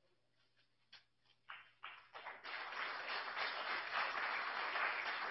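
Audience applause: a few scattered claps about a second in, swelling into steady clapping by about two seconds.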